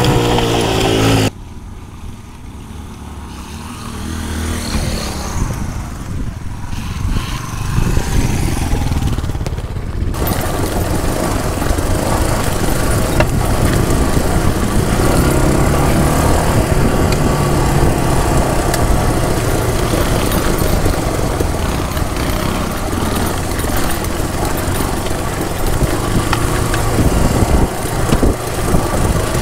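Small motorcycle engine running as the bike rides along a rough gravel track, with wind and track noise on the microphone. About a second in the sound cuts suddenly to a much quieter passage, which builds back up over the next several seconds into steady engine and wind noise.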